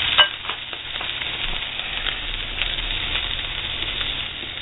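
Mushrooms, onions and meat sizzling in a frying pan, with a sharp clink about a quarter second in and a few light ticks as pieces of meat are dropped in.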